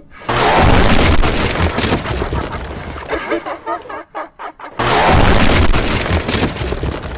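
Two loud booming blasts, the first lasting almost four seconds and the second starting about five seconds in, with a short dip between them.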